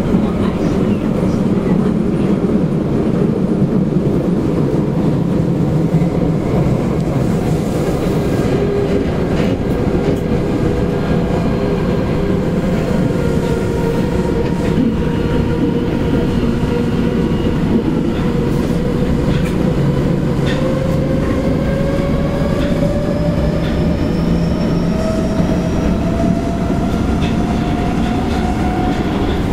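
Osaka Midosuji Line 10-series subway train with an IGBT-VVVF inverter, running: a steady rumble of wheels on rail with scattered rail-joint clicks. From about two-thirds of the way in, the traction motor whine rises in pitch as the train picks up speed.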